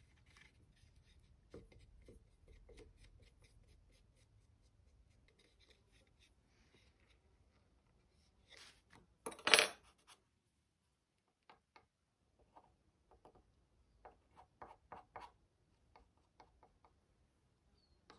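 Faint scraping and light ticking of a small screwdriver working wood filler into cracks in an ash tabletop. About nine seconds in comes one sharp, ringing clatter, the metal tool set or dropped down on the wooden table, followed by a string of separate light taps.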